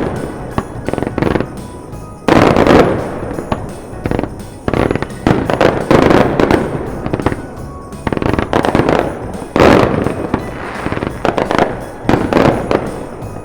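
Aerial fireworks going off overhead: a rapid series of sharp booms and crackling bursts, a few seconds apart, with background music.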